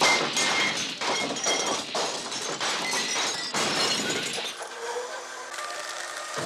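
Sudden loud crash of breaking glass with many clattering impacts, a dense racket lasting about four and a half seconds, then easing into a steadier, quieter noise with a low hum.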